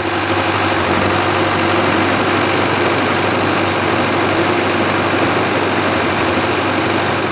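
A generator set's engine running steadily together with an electrically driven corn sheller running empty, with no corn fed in yet: a loud, even mechanical din with a low steady hum underneath.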